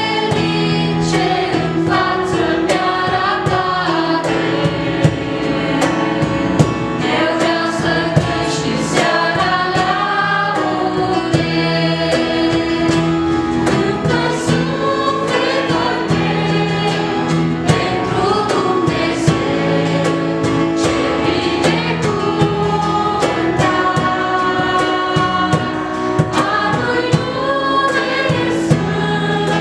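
A mixed group of young singers performing a Christian worship song in harmony, accompanied by acoustic guitar, keyboard and electric guitar, over a steady beat.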